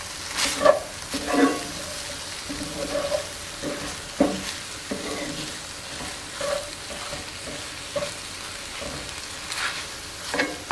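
Ground beef and vegetable filling sizzling in a hot cast-iron skillet, stirred and scraped around the pan with a wooden spatula. Irregular scraping strokes sound over a steady sizzle.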